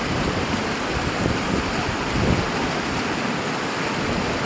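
River water rushing steadily, an even hiss of flowing water, with wind buffeting the microphone.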